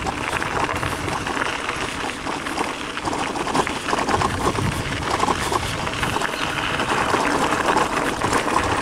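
Bicycle tyres rolling over a loose gravel track, a steady dense crunch and rattle of many small knocks from the stones and the jolting bike.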